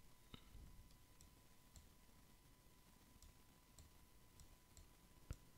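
Faint computer mouse clicks, about eight scattered over a few seconds with the loudest near the end, over near silence and a faint steady high tone.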